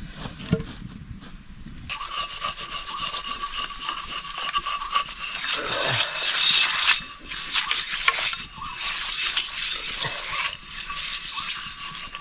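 Continuous scraping, rubbing noise that starts about two seconds in, with a thin steady tone under it.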